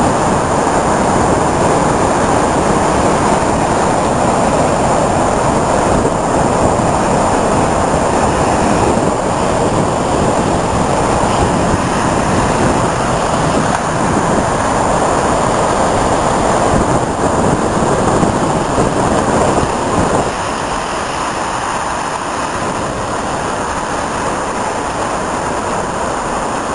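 Rough sea surf breaking in stormy weather, with wind on the microphone: a loud, steady rush that drops a little about two-thirds of the way through.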